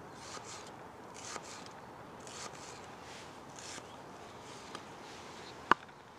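Knife slicing through a peeled onion on a wooden chopping board: soft, crisp cuts about once a second, then a sharp tap of the blade on the board near the end.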